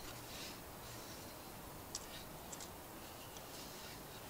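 Faint handling sounds of a hand-carved wooden kuksa being turned over in the hands, with a few light ticks about two to three and a half seconds in.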